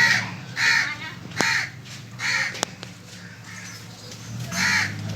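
A crow cawing over and over, about six short harsh caws with a longer gap after the fourth. There is a sharp click between caws and a steady low hum underneath.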